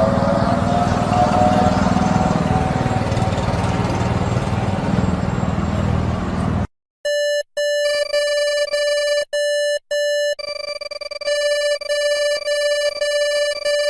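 Electronic emergency-alert attention tone: a harsh buzzer-like beep at one pitch, cut into a few short beeps and then held steady with higher tones layered over it. Before it, a noisy stretch with a rising siren-like wail stops abruptly about two-thirds of the way in.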